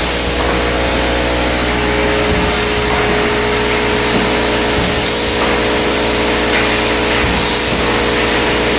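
Pneumatic e-liquid filling and labeling machine running: a steady mechanical drone with a constant hum, broken about every two and a half seconds by a short hiss of compressed air as the machine cycles.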